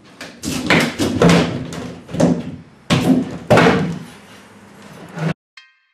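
A run of loud knocks, clunks and scrapes from tools and wood being handled, about half a dozen hits, cut off abruptly a little after five seconds in. Then short ringing musical notes start, about two a second.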